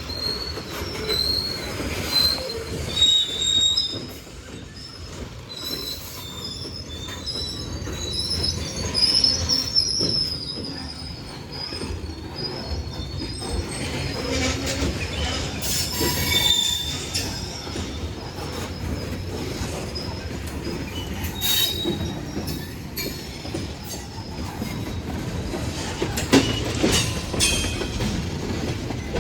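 Union Pacific manifest freight cars rolling past, their steel wheels squealing against the rail in high, wavering tones over a steady rumble and clicking of wheels over rail joints. The squeal is strongest in the first ten seconds and returns briefly later, typical of wheel flanges grinding as the train takes a switch onto another track.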